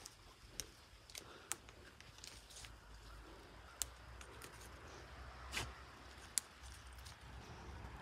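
Close handling noise: faint, scattered clicks and light rustling over a low rumble, with no steady or repeating pattern.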